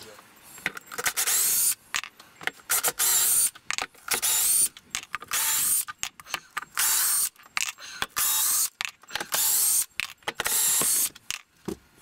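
A hand rubbing and wiping over the rubber surround of a car-audio subwoofer: a run of about a dozen short rubbing strokes, each under a second, with faint squeaks.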